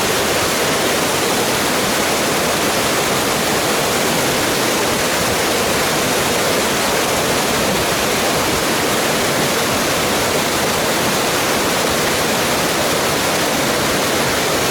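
Mountain waterfall cascading: a loud, steady rush of falling water.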